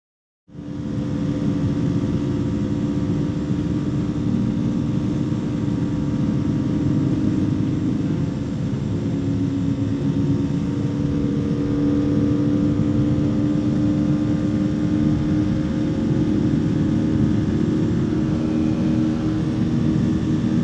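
KTM Duke 200's single-cylinder engine running at a steady cruising speed on the highway, with wind and road noise. It cuts in suddenly about half a second in.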